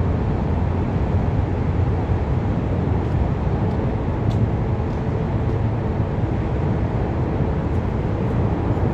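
Steady low rumble of traffic, with a few faint clicks about four and five seconds in.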